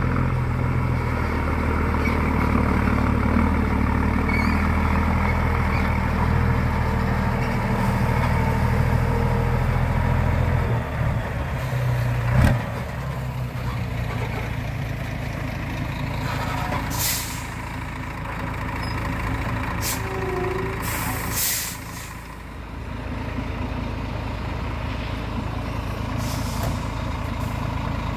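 Scania Highline truck's diesel engine running as it creeps onto a weighbridge, easing off to a lower idle about a third of the way in, with one sharp knock shortly after. The air brakes then give several short hisses as the truck settles on the scale.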